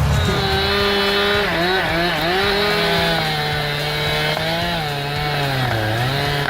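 Chainsaw engine running at high revs, its pitch sagging and recovering a few times, deepest near the end.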